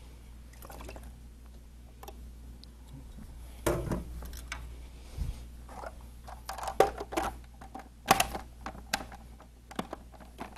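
Sharp plastic clicks and knocks from handling a food processor's bowl and lid while it is fitted together, mixed with soft wet sounds of jarred red peppers going into the bowl. The busiest knocking comes in the second half.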